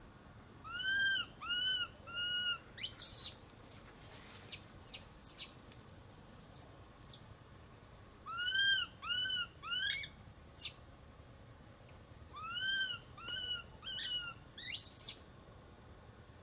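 Infant macaque calling: three runs of three arched coos, each run lasting about two seconds, with short, sharp rising squeaks in between.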